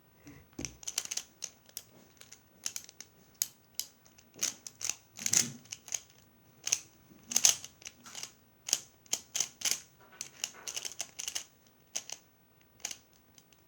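An ordinary, non-speed pyraminx puzzle being turned rapidly during a timed solve: a quick, irregular run of plastic clicks and clacks as its layers and tips rotate.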